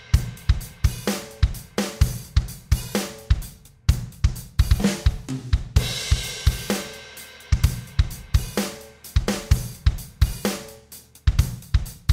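Outro music: a drum-kit beat with kick, snare and cymbals at a steady tempo.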